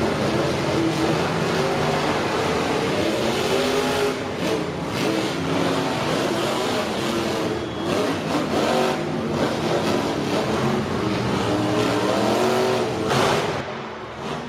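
Monster truck engine revving up and down over and over, its pitch rising and falling under a steady wash of noise, with a louder surge near the end.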